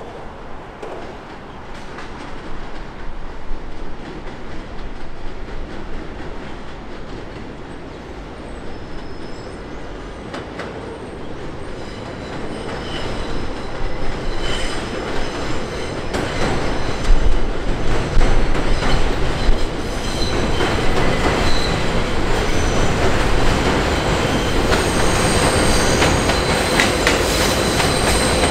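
New York City Subway L train approaching on an elevated steel structure, its rumble growing steadily louder. Near the end its wheels squeal in several steady high tones as it rounds the curve.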